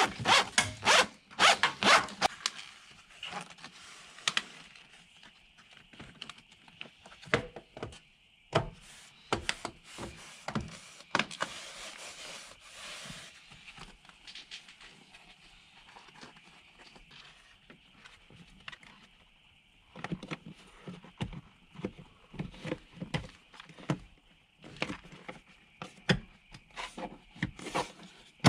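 Hands working a cable behind plastic interior trim panels: scattered clicks, rubs and rasping scrapes, loudest and busiest in the first couple of seconds, sparser through the middle, then picking up again near the end.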